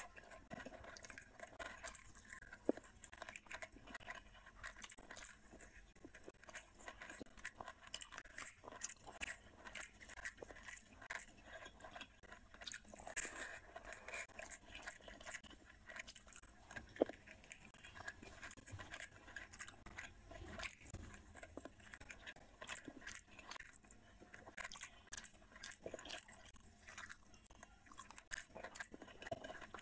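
Close-miked mouth sounds of a person eating rice and curry by hand: chewing with many small wet clicks and smacks, and the fingers mixing rice on the plate. A few sharper crunches stand out, about three seconds in, near the middle and a little after.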